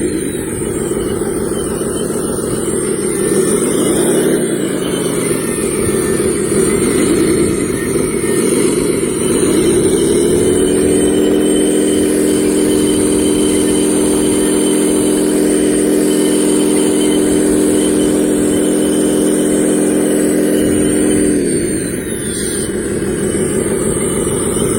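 Motor of a radio-controlled construction vehicle running: its pitch rises and falls a few times, climbs and holds steady for about ten seconds, then drops near the end as it winds down.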